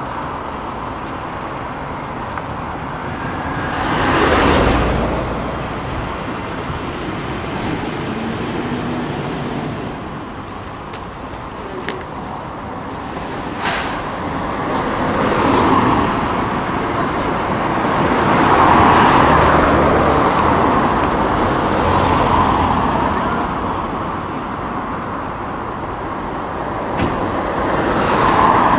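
Road traffic: several cars pass one after another, each swelling and fading over a steady background of traffic noise.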